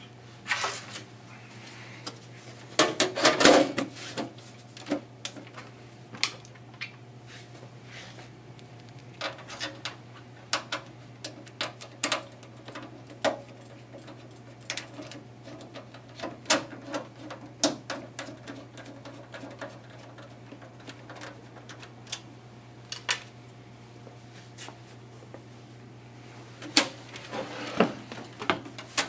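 Sheet-metal side cover of a desktop PC case being put back on, with a cluster of metallic clatters and knocks about three seconds in. Scattered clicks and taps follow as the cover is secured at the back, over a steady low hum.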